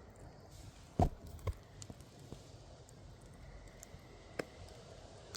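Campfire crackling: scattered sharp pops and clicks over a faint hiss, with a dull thump about a second in and a smaller one half a second later.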